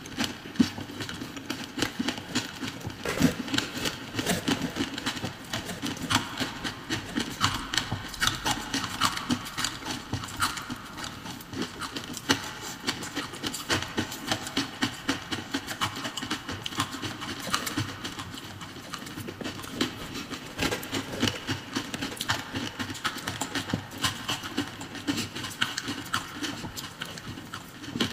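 Crunching and chewing of mouthfuls of crushed green-coloured ice, a continuous run of sharp crackling crunches.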